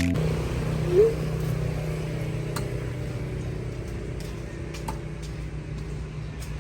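Steady hum of a moving vehicle's engine and road noise, with a few faint clicks. A brief rising tone sounds about a second in.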